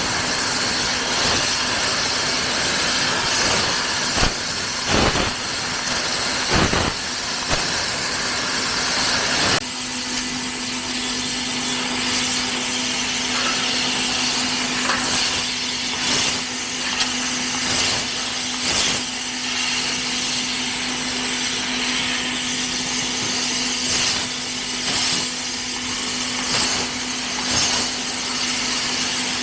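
Fiber laser tube cutting machine running: a steady hiss over a constant hum, with scattered short sharp clicks and knocks.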